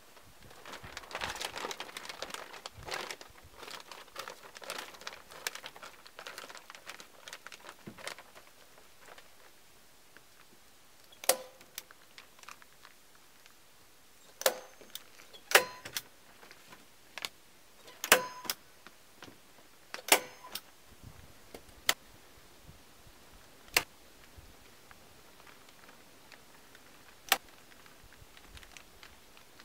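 Clear plastic sheeting rustling and crinkling as it is handled, then a string of single sharp metallic clacks, about ten of them a second or two apart, as the sheeting is fastened to the log walls.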